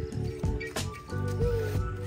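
Background music with sustained notes and a regular beat.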